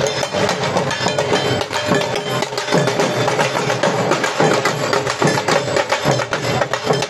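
Several dhol drums, double-headed barrel drums slung from the shoulder and struck with sticks, played together in a fast, driving rhythm of many strokes.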